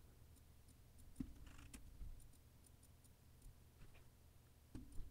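Near silence: room tone with a few faint clicks at the computer, the clearest about a second in and just before the end.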